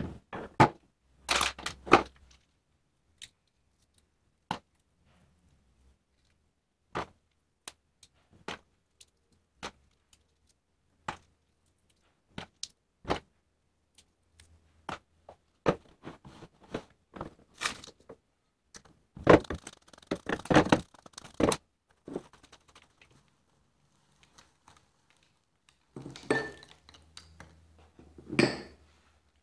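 Scattered clicks, taps and crinkles of a thin plastic bottle, bowls and a plastic funnel being handled on a tabletop, with denser bursts of handling noise near the start, around the middle and near the end.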